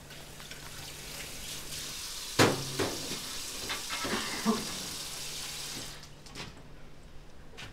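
Kitchen tap running into a sink while drinking glasses are handled, with a few sharp clinks of glass, the loudest about two and a half seconds in. The water shuts off about six seconds in.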